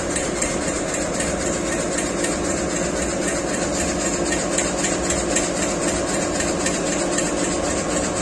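Laser engraving machine running at the start of a job, its head moving over plywood: a steady mechanical hum with a high hiss.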